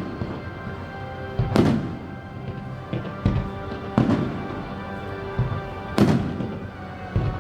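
Fireworks shells bursting in sharp bangs, three big ones about two seconds apart with smaller pops between, over music playing throughout.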